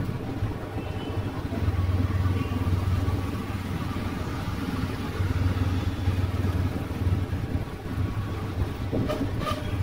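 Motorbike street traffic: scooter and motorbike engines running and passing, making a steady low rumble, with a couple of short clicks near the end.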